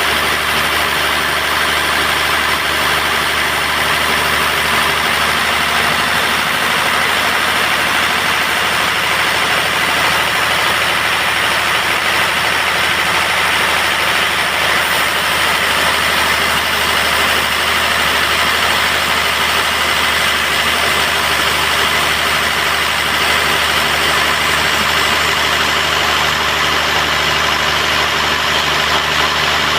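Band sawmill running steadily while sawing durian wood: a constant engine hum under an even hiss, with no pauses or changes.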